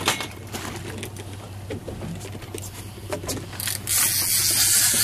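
Rapid mechanical clicking from a Penn 30 lb big-game fishing reel as it is worked under load against a hooked bluefin tuna, over a steady low hum. About three and a half seconds in, a loud hiss takes over for about a second and a half.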